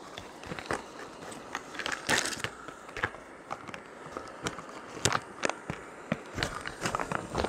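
Freeze-dried meal pouch being torn open across its tear notch and then pulled open: a run of plastic crackles and rustles, with a longer, louder rip about two seconds in.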